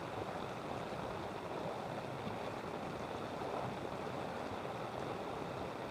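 Steady sloshing and swishing of floodwater as someone wades through it.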